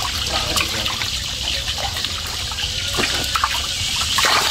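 Water trickling and splashing, with a few sharp clicks, about three seconds in and near the end.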